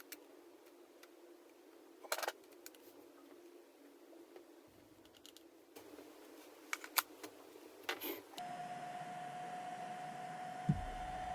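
A few scattered sharp clicks and taps over faint room tone. About eight seconds in, the background changes abruptly and a steady, even hum sets in.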